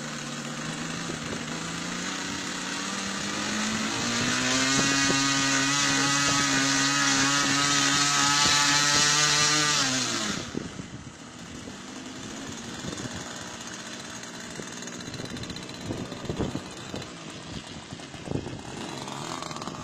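Small model-airplane engine running up: its pitch climbs over the first few seconds, holds steady at high revs, then drops back sharply about ten seconds in to a much quieter low-speed run. A few sharp knocks come near the end.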